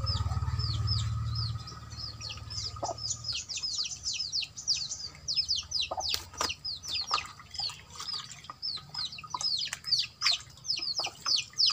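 Birds chirping rapidly: many short, high, falling peeps, several a second. A low hum sounds at the start and stops about three seconds in, and there are a few short knocks.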